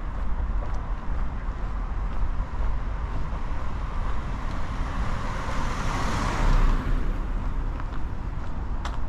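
A car passing by, its tyre and engine noise swelling to a peak about six seconds in and then fading, over a steady low traffic rumble.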